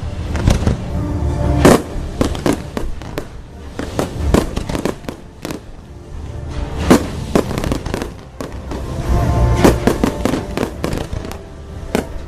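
Fireworks bursting overhead in a string of sharp bangs and deep booms at uneven intervals, several in quick succession at times. Show music plays steadily underneath.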